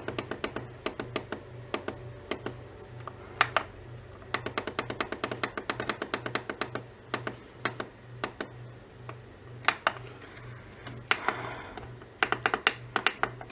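Computer keyboard keys being typed, in quick runs of sharp clicks with short pauses between them.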